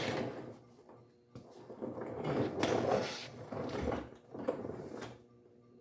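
Mechanic's creeper rolling and scraping on the shop floor in several uneven pushes as a person shifts on it to get under a car.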